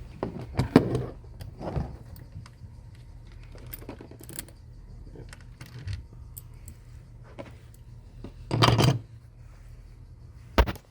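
Small metal and plastic computer parts and tools being handled: scattered light clicks and clinks, a louder clatter about three-quarters of the way through, and a sharp click just before the end.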